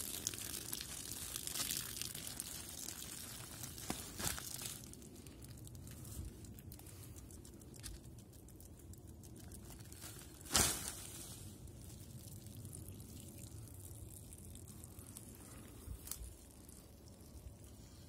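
Woven plastic tarp rustling and crinkling while its tie cords are cut with a knife and it is pulled down, with a few sharp knocks, the loudest about ten and a half seconds in.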